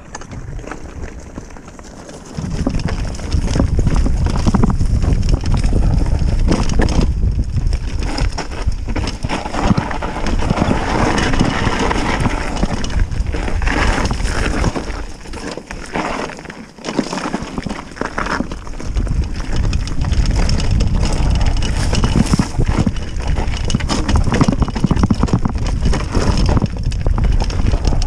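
Mountain bike riding down a rough trail: tyres on dirt and rock, with the frame and chain rattling in quick knocks over the bumps. A heavy low rumble runs under it, louder from about two seconds in.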